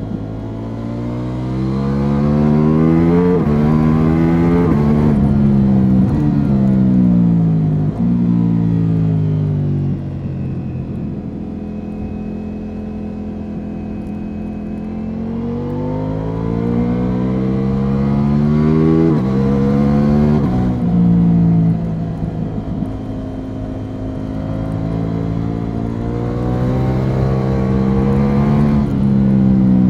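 Ducati Multistrada V4 S's V4 engine through an Akrapovic slip-on exhaust, accelerating hard with quick upshifts: the revs climb and drop sharply at each gear change. The revs fall away on a closed throttle through the middle, then it pulls up through the gears twice more.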